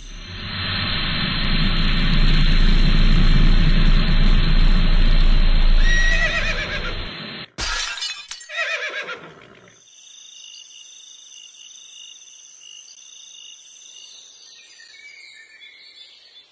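A loud rushing noise with a low rumble for about seven seconds, cut off by a sharp crack. Then a horse's whinny as a cartoon sound effect, falling in pitch, followed by faint high steady tones.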